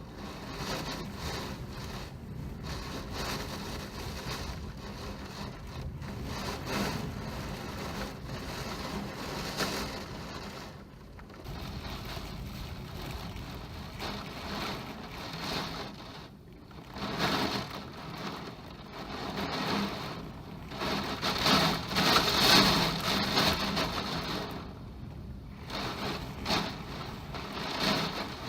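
Typhoon storm: heavy rain pouring and wind gusting, the noise swelling and falling back in surges, loudest about two-thirds of the way through.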